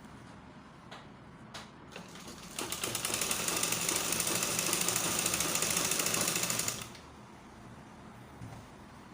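Sewing machine stitching an invisible zipper in one steady run of about four seconds, starting a couple of seconds in and stopping abruptly. A few light clicks come just before it starts.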